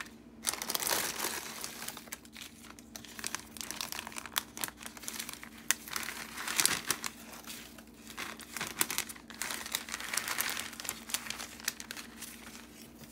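Clear plastic treat bag and kraft crinkle-cut paper shred crinkling and rustling in irregular bursts as hands stuff the shred into the bag.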